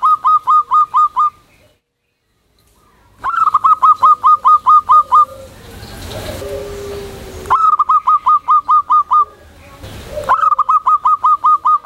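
Zebra dove (perkutut) singing: runs of rapid, clipped notes, about five a second, repeated four times with short pauses between the runs.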